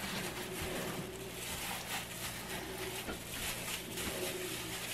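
Plastic-gloved hands squishing and rubbing seasoned raw chicken drumsticks in a stainless steel bowl: soft, irregular wet rustling over a faint steady hum.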